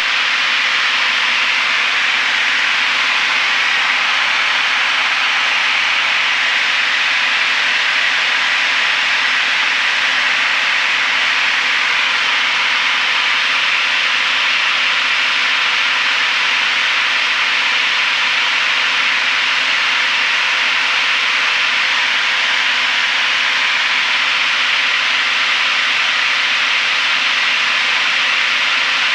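Steady cabin noise of a Piper PA-32R Saratoga single-engine piston plane in cruise descent: an even rush of airflow and engine and propeller drone, unchanging in level, with a faint low hum of engine tones beneath.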